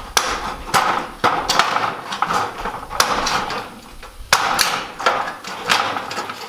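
Wiss hand snips cutting across a vented soffit panel: a run of rasping cuts, each closing of the blades ending in a sharp snap, about ten snaps at uneven spacing.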